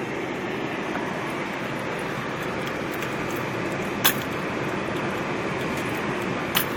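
Pickup truck driving slowly, a steady engine and road noise, with two sharp clicks, one about four seconds in and one near the end.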